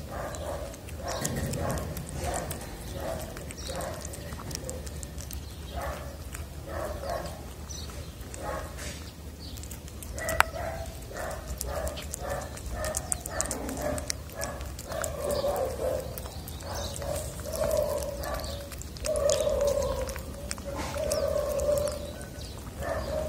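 A tabby cat eats wet cat food from a plastic dish close to the microphone: a run of short, wet chewing and smacking sounds, several a second. There are a few longer, louder sounds in the second half and one sharp click about ten seconds in.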